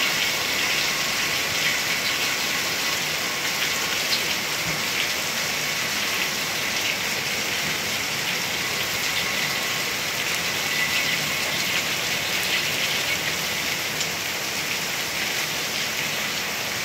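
Steady rain falling on trees, roofs and a concrete walkway: an even hiss with scattered close drop hits ticking through it.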